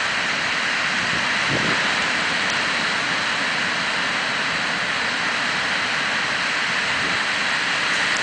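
Ocean surf breaking on a sandy beach: a steady, even hiss of waves.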